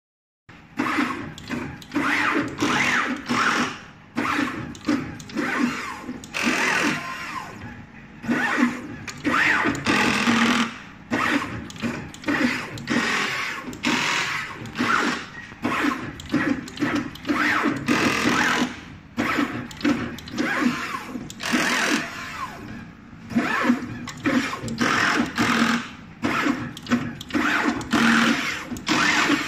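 NeoDen N4 pick-and-place machine running: its gantry and placement heads move in quick, uneven bursts about twice a second as it picks and places surface-mount components.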